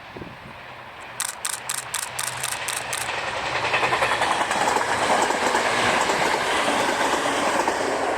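JR East E721-series and 701-series electric multiple units, two cars each, running past on the rails. About a second in comes a quick run of sharp clicks, about four a second. Then the train's running noise swells and stays loud.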